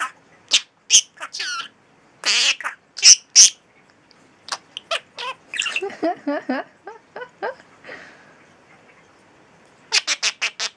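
Pet budgerigar shrieking: loud, sharp, high calls, then a softer run of lower, warbling chatter, and a quick string of about seven shrieks near the end.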